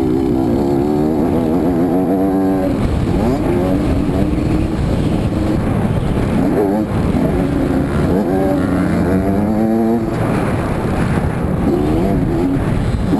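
Honda CR80RB two-stroke motocross engine heard onboard, revving hard and dropping back several times. The pitch climbs on each run as the bike pulls out of turns and down the straights.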